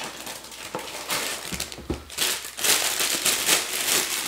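Clear plastic Lego parts bags crinkling and rustling as they are handled and pulled out of the cardboard set box, busiest and loudest in the second half. There is a soft low bump about one and a half seconds in.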